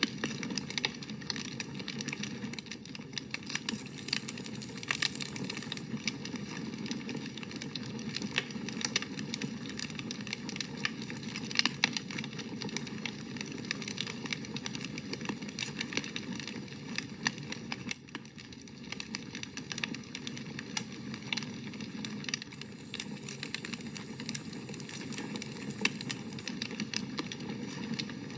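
Campfire burning, wood crackling and popping with frequent sharp snaps over a steady rushing of flame. A high hiss rises twice, about four seconds in and again near the end.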